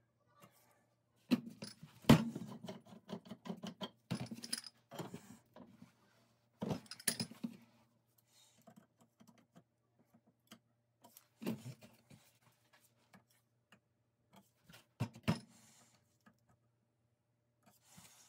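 Black iron pipe fittings and a steel caliper clinking and knocking as they are handled on a workbench, in scattered clusters with quiet gaps between. A faint steady hum runs underneath.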